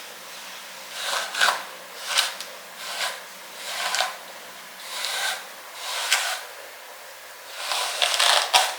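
Hair being brushed in repeated strokes, about one a second, each a short rubbing swish, with a sharp click near the end.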